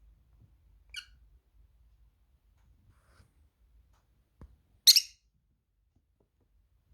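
Pet bird calling indoors: a brief chirp about a second in, then a much louder short squawk near the five-second mark, just after a faint knock.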